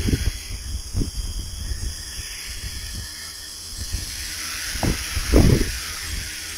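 Wind buffeting the microphone in gusts, with strong low rumbles about a second in and twice near the end, over a steady high hiss.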